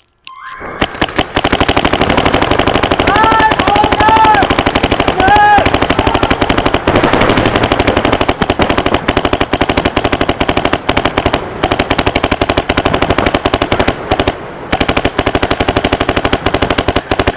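Paintball markers firing in rapid, continuous volleys, many shots a second from several guns at once, echoing in a large indoor hall. The firing starts about half a second in and keeps up with only a brief lull near the end.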